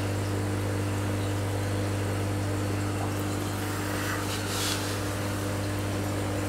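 Steady low hum of an aquarium pump running. A brief hiss comes about four and a half seconds in.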